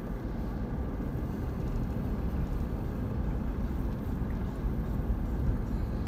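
Steady low rumble of a vehicle travelling along a road, with no clear engine note.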